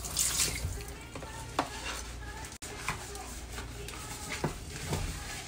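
Soft rustling of rice being spread by hand over a platter, with a few faint light clicks, over a steady low hum.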